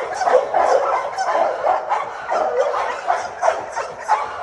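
Several pit bull-type dogs barking and yipping in quick, overlapping calls.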